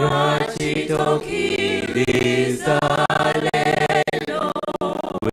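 A church choir of women's and men's voices singing together into microphones, coming in all at once right at the start.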